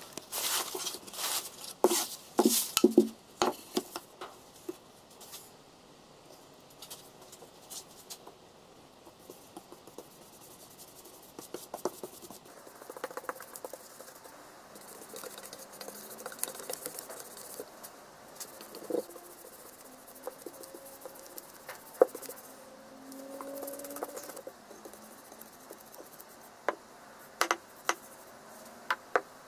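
Paintbrush scrubbing wood stain onto plywood, a soft scratchy swishing with scattered taps and clicks. There is a cluster of louder knocks and scrapes in the first few seconds, and a few sharp single clicks near the end.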